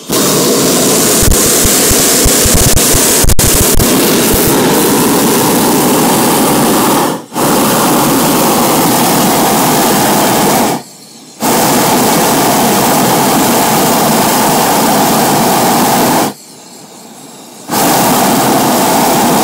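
Hot-air balloon's propane burner firing, a loud steady roar in long blasts with short breaks about seven, eleven and sixteen seconds in.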